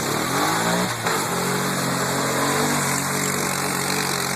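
ATV engine revving, rising in pitch over about the first second, then running at a steady higher speed.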